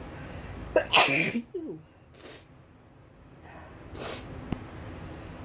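A woman's sneeze, loud and sharp, about a second in after a short breathy build-up. Fainter breathing and sniffing follow as the next sneeze builds; she is inducing the sneezes on purpose.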